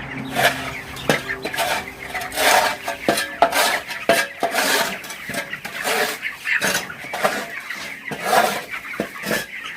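Repeated clattering and scraping, like pans or feeders being handled, with young chickens clucking around it.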